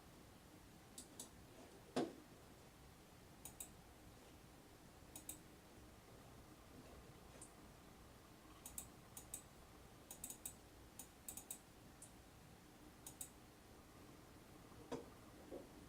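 Faint computer mouse clicks, often in quick pairs and scattered irregularly, as BIOS menus are navigated. There is a duller knock about two seconds in and another near the end.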